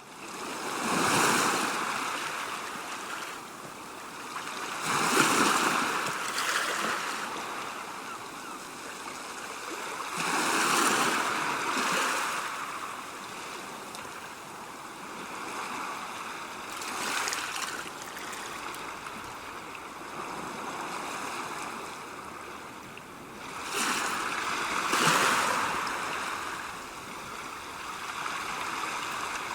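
Sea waves breaking and washing on the shore: a steady rush of surf that swells and fades, with a louder wave breaking every five or six seconds.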